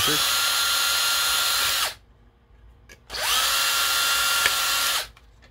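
Cordless drill with a small 1/16-inch (1.5 mm) bit drilling out screw holes in a drone's plastic GPS housing, in two runs of about two seconds each. The motor whine holds a steady pitch, stops about two seconds in, spins up again about a second later and stops near the end.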